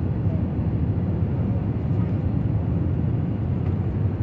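Steady low roar of a jet airliner heard inside the passenger cabin, engine and airflow noise during the descent to land.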